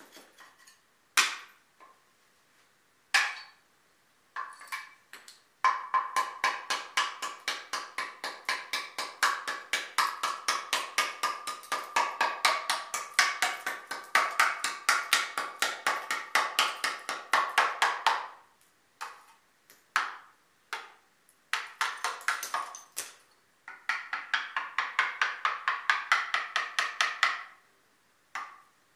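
Rapid hammer taps, about five a second, in runs of several seconds with short pauses, each tap ringing briefly at a steady pitch. This is typical of chipping a brick down to size.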